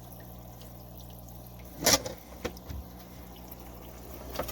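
Marineland Penguin 200 power filter running: water spilling from its outlet into the aquarium with a steady trickle, over a low motor hum. A single short knock about two seconds in.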